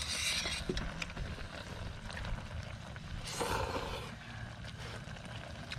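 Ramen noodles being slurped: a short slurp right at the start and a longer one about three seconds in, over a steady low hum.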